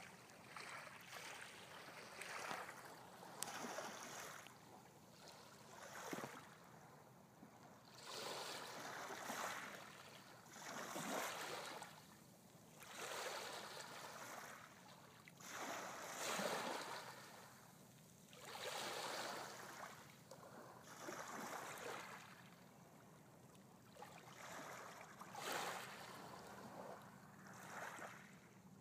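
Small waves lapping onto a pebble shore, each soft wash swelling and fading about every two to three seconds.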